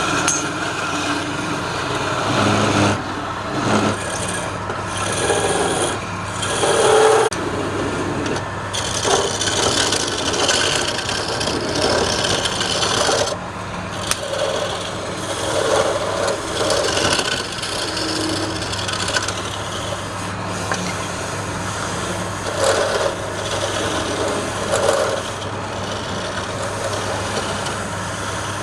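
Wood lathe running with a turning tool cutting and scraping the spinning wood, the scraping swelling and easing in uneven strokes over a steady motor hum.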